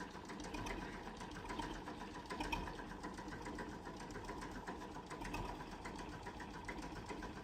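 Faint, rapid, even mechanical ticking over a steady hum, like a small engine running.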